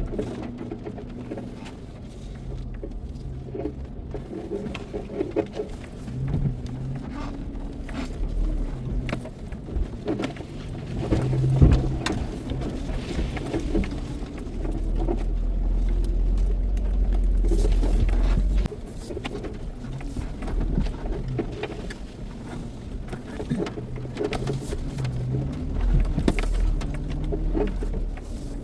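Off-road Toyota 4x4 engine running at low revs, rising and falling as it crawls the trail, with scattered knocks and clunks. A loud steady low rumble lasts about four seconds in the middle and cuts off suddenly.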